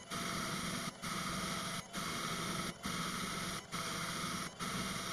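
Router motor driving a CNC lathe add-on, spinning a cold-rolled steel bar while a brazed carbide tool takes roughing passes. A steady hum that dips briefly about once a second.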